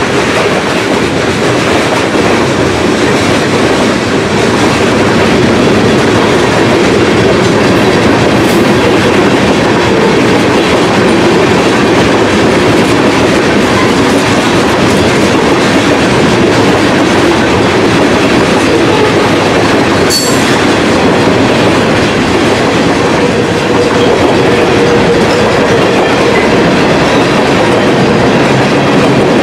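Freight train cars (tank cars, then boxcars and centerbeam flatcars) rolling past close by: a steady loud rumble of steel wheels on the rails with clickety-clack over the joints, and one sharp clank about twenty seconds in.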